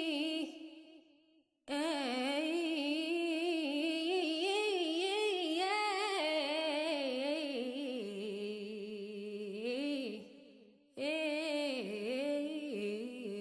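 A woman's solo voice singing wordless, wavering melodic phrases a cappella, sliding from note to note. There are two brief breaks for breath, about a second and a half in and again about ten seconds in.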